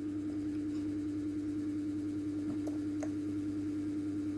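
Steady low electrical hum at one even pitch, with a few faint ticks a little before the middle.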